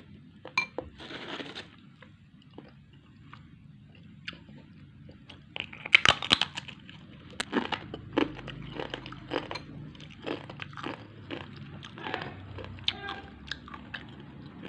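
Close-miked eating: bites into crunchy food and chewing, a run of sharp crackling crunches loudest about six seconds in, then steady chewing with scattered clicks.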